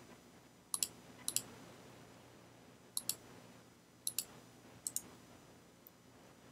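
Computer mouse clicking about five times at irregular intervals, each a quick double tick of the button going down and coming back up, over faint room hum.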